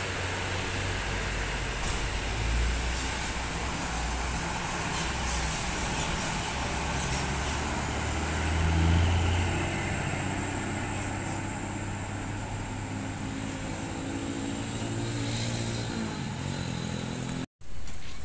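Diesel engine of a large coach bus pulling away and accelerating, its pitch rising and dropping as it goes through the gears. It is loudest about nine seconds in as the bus passes close.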